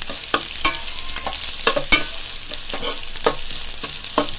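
A metal spoon scraping and clinking against a wide metal pan as chopped vegetables are stir-fried, with a steady sizzle under it. The clicks come irregularly, about two a second.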